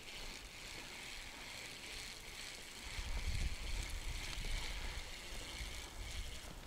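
River water flowing and lapping around an inflatable boat, with a low rumble joining in about three seconds in.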